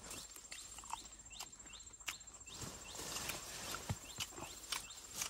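Close-up eating sounds of crispy fried chicken: scattered crunchy clicks and smacks from chewing. Behind them are a steady high insect chirring and many short, repeated rising chirps.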